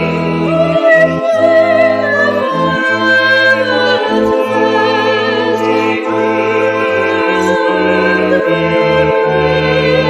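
Classical sacred vocal music: a singer holding long notes with vibrato over sustained accompaniment whose low notes change in steps.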